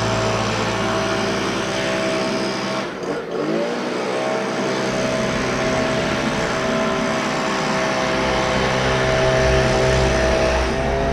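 Honda 216 self-propelled lawn mower's petrol engine running steadily under mowing load, dipping briefly about three seconds in and then rising back to its working speed.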